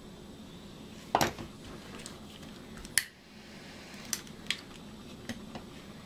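Handling clicks and clinks of small tools and a plastic remote on a wooden workbench: two sharp clicks about a second apart, then four lighter taps.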